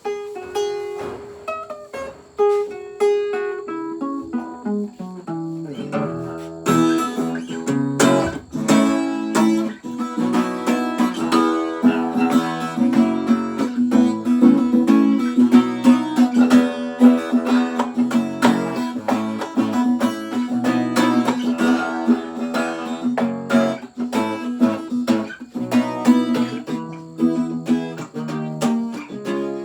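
Guitar playing an instrumental passage: single picked notes stepping down in pitch over the first several seconds, then fuller, rhythmic strummed chords from about seven seconds in.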